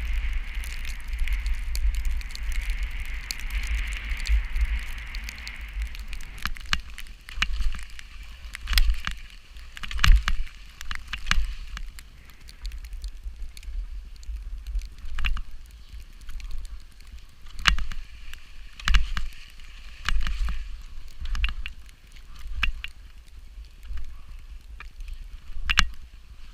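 Storm wind buffeting the microphone as a gusty low rumble, with a steady hiss for the first several seconds, then irregular clicks and knocks.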